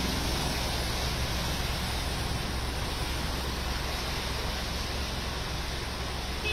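Steady hiss of heavy rain and rushing floodwater on a waterlogged street, with a low steady rumble underneath.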